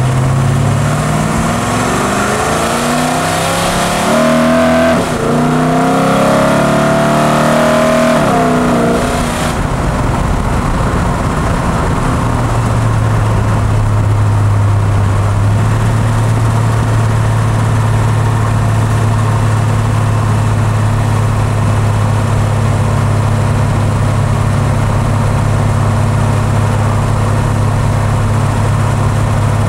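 Car engine revved several times, its pitch rising and falling, then settling after about ten seconds into a steady idle. The owner suspects the newly fitted Carter mechanical fuel pump is bad.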